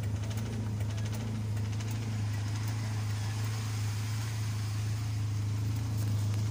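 Car engine idling with a steady, even hum, before repair of a fault that keeps the idle speed high.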